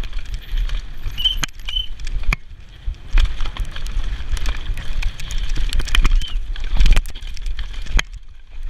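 Specialized Demo downhill mountain bike descending a rocky dirt trail at speed: tyres rolling over stones, with frequent sharp knocks and rattles from the chain and frame. Wind rumbles on the camera's microphone, and the level dips briefly near the end.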